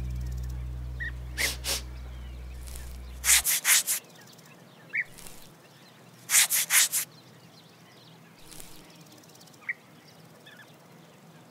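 A grasshopper's rasping stridulation: two bursts of about four quick scraping strokes each, a few seconds apart, with a few fainter single strokes and small high peeps in between. A held music chord fades out at the start.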